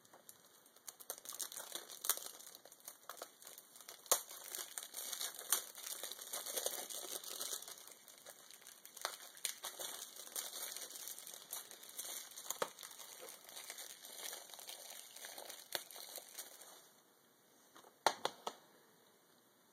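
Clear plastic shrink wrap crinkling and tearing in irregular crackles as it is peeled off a Blu-ray case. Near the end, after a short pause, a couple of sharp knocks as the case is set down on a wooden table.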